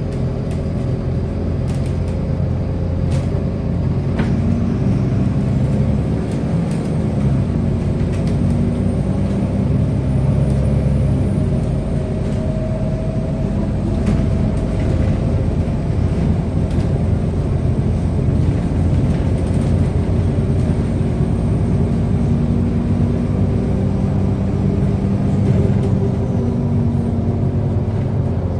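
Inside a MAZ-303 low-floor city bus under way: steady engine and road noise, with occasional short clicks and rattles.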